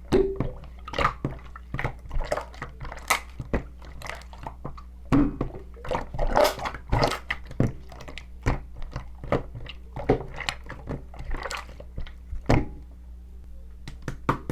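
Irregular close-up taps, clicks and soft thunks, a few a second, over a steady low electrical hum.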